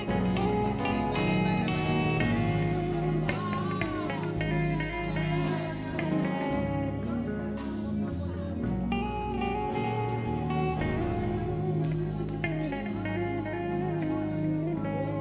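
Worship band music without words, a guitar line carrying the melody over a moving bass.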